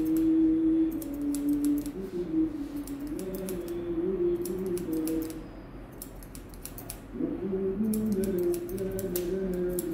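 Barber's scissors snipping hair in quick, irregular clicks as the hair is combed and cut, over a simple tune in the background that breaks off for a moment near the middle.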